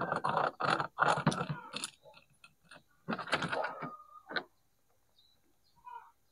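Clattering and scraping of a Philips hand mixer's bare motor and plastic housing being handled, in several dense bursts over the first two seconds and again around three seconds, then one sharp click.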